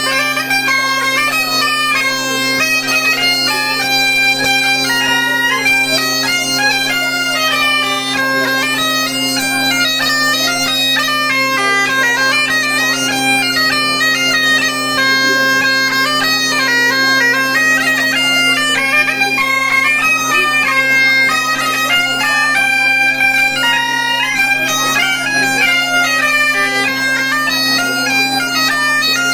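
Highland-type bagpipe (biniou braz) playing a hanter-dro dance tune over its steady, unbroken drones, with a bombarde playing along on some phrases.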